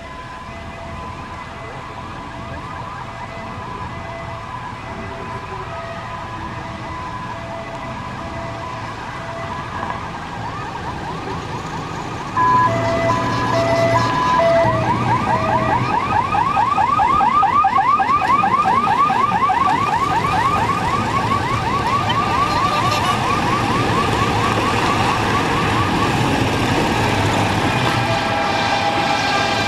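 Electronic siren sounding as cars move off in a convoy. First comes a repeating hi-lo beeping, which gets abruptly louder about twelve seconds in. It then switches to a fast warbling wail of several sweeps a second before settling back to steady tones near the end. Vehicles run underneath.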